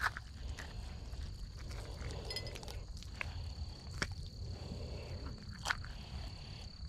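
A knife cutting through a strip of pez diablo (armored sailfin catfish) for bait, with a few sharp clicks and scrapes. Under it, a steady high-pitched insect buzz and low wind noise.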